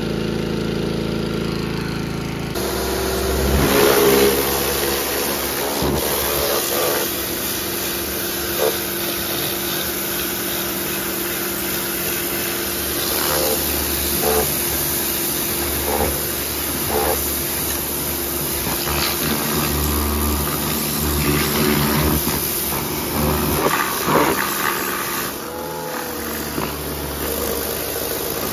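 Pressure washer running, its motor and pump humming steadily. About two and a half seconds in the spray comes on and blasts the underside of a steel lawn mower deck with a loud, steady hiss.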